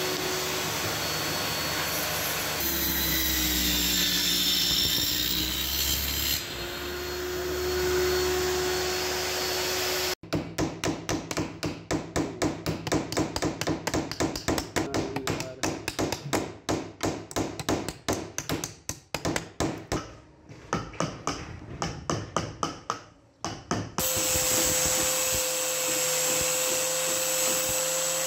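A table saw runs steadily, its pitch dropping for a few seconds as it cuts a chipboard panel. Then a hammer drives small nails into a wooden table frame in quick strokes, about three or four a second. Near the end an angle grinder with a sanding pad runs with a steady high whine as it sands a wooden strip held in a vise.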